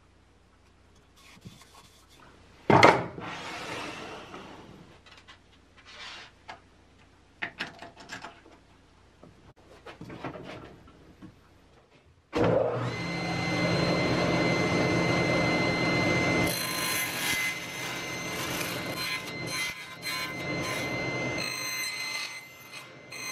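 A few knocks and rubs as the plywood workpiece is handled, then about halfway through a table saw switches on suddenly and runs with a steady whine. After a few seconds it starts cutting, biting a series of notches into a plywood gear blank that is turned step by step on a crosscut sled.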